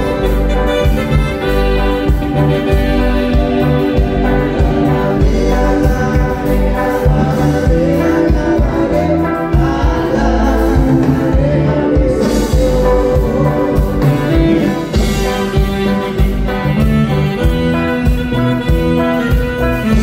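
Live band music played loud through a stage sound system, with a steady bass-drum beat under guitars, keyboard and a singing voice.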